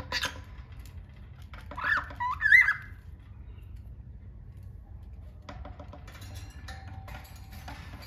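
Cockatiel calling: a short sharp chirp right at the start, then a few whistled notes that bend up and down about two seconds in. Faint clicking and scratching fill the last couple of seconds.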